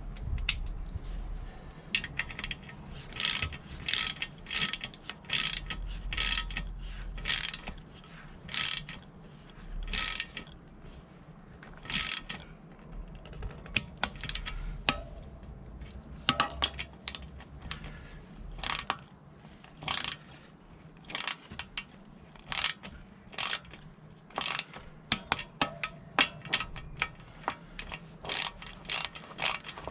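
Torque wrench ratcheting as the front wheel spindle clamp nuts are tightened to 15 ft-lb: quick runs of sharp ratchet clicks, with short pauses between strokes.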